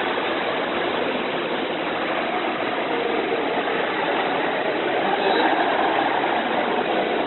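Steady, even background noise like a running machine, with no distinct knocks, clicks or voices.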